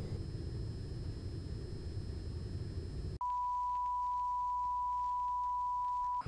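A low rumbling hiss with a faint high whine, the noise of a security-camera feed. About three seconds in it cuts abruptly to a steady, single-pitched colour-bar test tone, which signals the video failure. The tone lasts about three seconds and stops suddenly.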